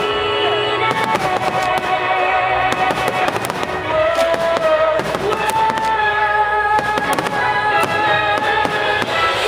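Fireworks bursting and crackling over music with held melodic notes.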